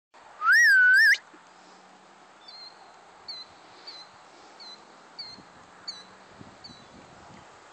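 A person's loud whistle, lasting under a second, gliding up, dipping and rising again: a call to a herd of horses. After it, a bird chirps repeatedly, a short high call about every two-thirds of a second.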